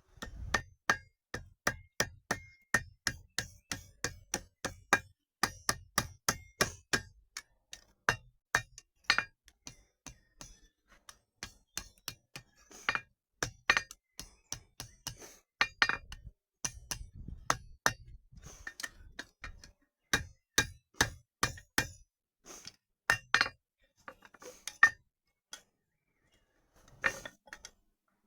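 Blacksmith's hammer striking steel on an anvil in a steady run of blows, about two to three a second, each with a short metallic ring. The blows pause briefly a few times and grow sparse near the end.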